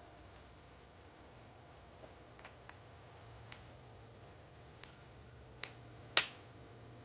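Scattered sharp clicks and taps of small hard objects, about half a dozen spread irregularly, with one much louder click about six seconds in.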